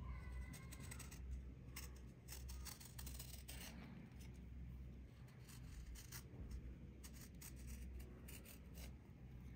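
Serrated blade scraping a dried, crumbly brown crust in short, irregular, dry rasping strokes, with flakes breaking off, over a low steady hum.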